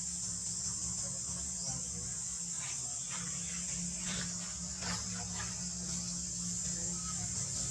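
Steady high-pitched drone of insects, such as cicadas or crickets, over a low outdoor rumble, with a few brief clicks or rustles in the middle.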